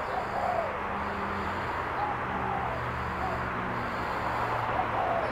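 Spotted dove cooing: a run of low coos over a steady background hiss.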